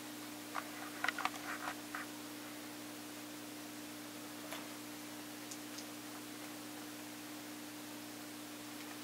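A steady low hum with a hiss under it. About a second in comes a brief flurry of light scratches and ticks, a cat's claws scrabbling on a blanket, with a few faint ticks after.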